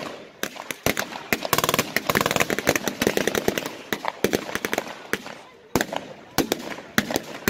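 Blank gunfire from WWII reenactors' rifles and machine guns: scattered sharp shots throughout, with a rapid string of shots about two seconds in.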